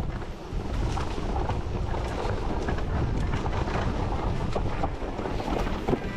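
Mountain bike riding over a rough, stony trail: steady rushing wind on the microphone with many small clicks and knocks from the tyres hitting stones and the bike rattling.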